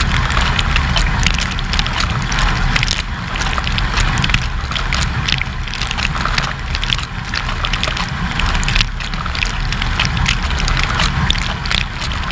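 Water spraying and splashing against the walls and racks inside a running AEG dishwasher, heard from within the tub. A steady low hum, typical of the wash pump, runs under a constant patter of droplets.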